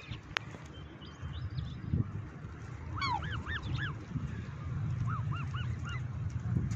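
Black swans calling: short, high arched honks, a quick cluster about three seconds in and then a run of several evenly spaced calls a couple of seconds later.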